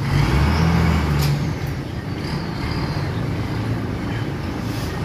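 Diesel engine of a loaded flatbed truck running as it manoeuvres slowly, pulling harder for about the first second and a half, then settling to a steady hum.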